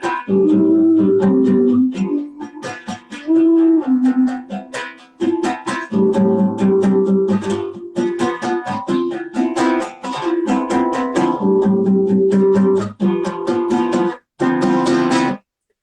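Acoustic plucked-string instrument playing an instrumental passage of a song in a steady strummed rhythm. The sound cuts out briefly twice near the end.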